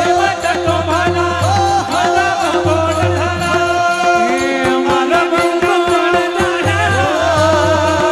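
Marathi devotional kirtan music: a singer's ornamented, sliding melody over a held drone, with drum strokes that come thick and fast about halfway through.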